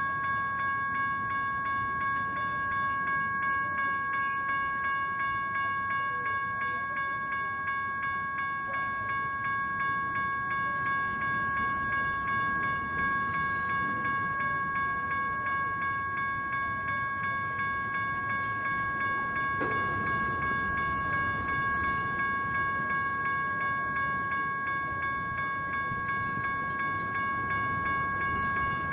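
General Signals Type 1 railroad crossing bells ringing continuously, over the rumble of a BNSF double-stack freight train's cars rolling through the crossing. A single clank rings out about twenty seconds in.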